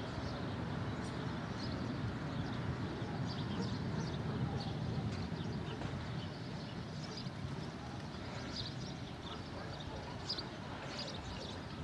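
Strong wind blowing across the microphone ahead of a thunderstorm, a steady rushing noise, with scattered short high chirps over it.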